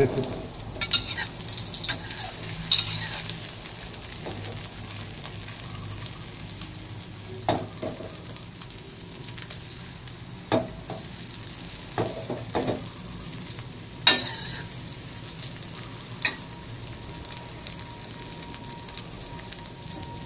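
A Thai omelette of beaten egg and chopped garlic chives sizzling as it fries in an aluminium wok. A metal spatula scrapes and knocks against the pan every few seconds.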